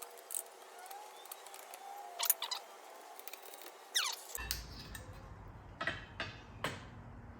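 A few light clicks and taps with a brief squeak, as steel seat rails and hand tools are handled during seat-rail removal.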